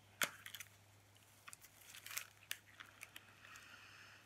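Faint crinkling and small clicks of a thin clear plastic sleeve being handled and opened, then a faint sniff near the end.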